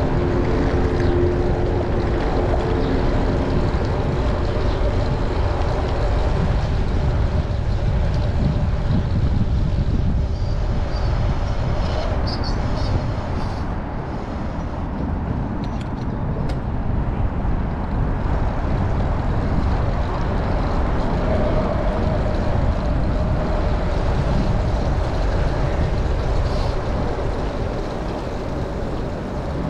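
Wind rushing over the microphone of a camera on a moving bicycle, with city traffic running alongside. A pitched vehicle engine drone is heard in the first few seconds.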